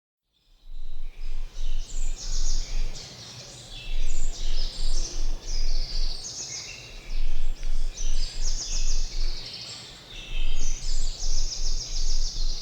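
Recorded songbird singing, a chirping phrase of several notes repeated in about four bouts with short pauses between them, over a steady low hum. The same song over and over makes the point of a monotonous forest.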